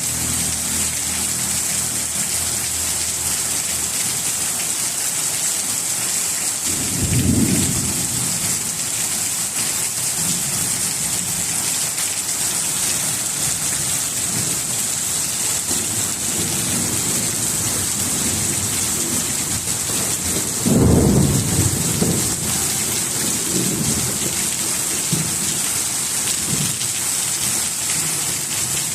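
Steady heavy rain falling without a break, with thunder rumbling about seven seconds in and again, louder, about twenty-one seconds in, followed by a few smaller rumbles.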